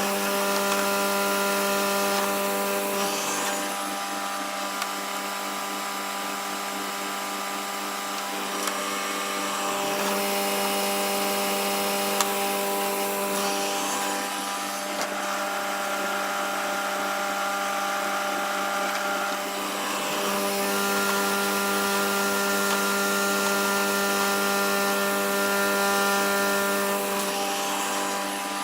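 Table saw running steadily, ripping thin wood veneer strips. The sound grows louder and hissier three times as the blade cuts.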